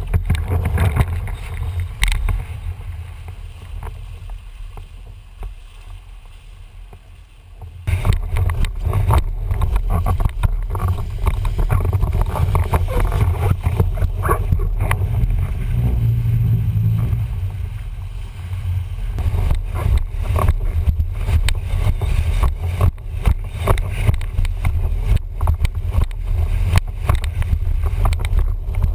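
Water rushing and splashing around a windsurf board under sail, with a low rumble and many short knocks as the board and rig move, picked up by a camera mounted at the mast foot. It is quieter at first and jumps to a louder, steady level about eight seconds in.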